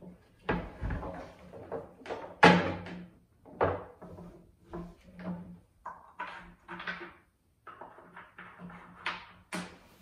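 Wooden clunks and knocks from a folding plywood pinball machine as its hinged legs and body are unfolded and set in place. It is an irregular string of knocks, the loudest about two and a half seconds in.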